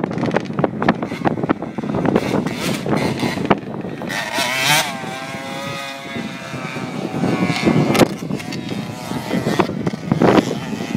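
Dirt bike engine running on the track, its note rising and falling in pitch for a few seconds about four seconds in, amid gusty wind noise on the microphone.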